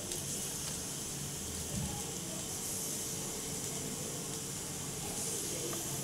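Steady hiss with a faint steady hum under it, and a faint click near the end.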